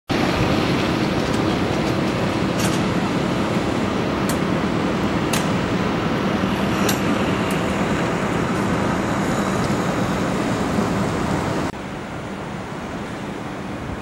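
Steady outdoor road-traffic noise with a few faint sharp ticks. A little before the end it cuts abruptly to a much quieter indoor room tone.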